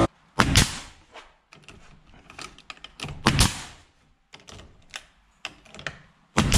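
Nails being driven into wooden trim boards: sharp knocks, the loudest coming in quick pairs near the start, about three seconds in and again near the end, with quieter taps between.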